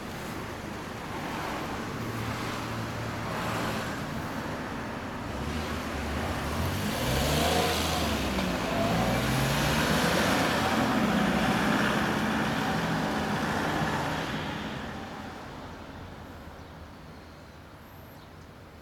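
A motor vehicle's engine, its pitch climbing in steps, growing louder to a peak in the middle and then fading away toward the end.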